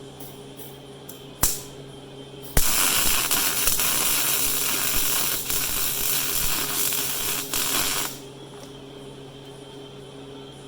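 Electric welding arc on a cast iron engine block: a sharp click, then the arc strikes about two and a half seconds in and crackles and hisses steadily for about five and a half seconds before cutting off. This is a weld pass laid into a ground-out crack in the block.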